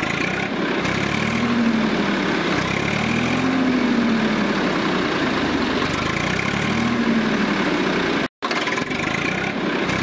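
An engine running steadily with a low rumble, its pitch gently rising and falling every few seconds; the sound cuts out for a moment once near the end.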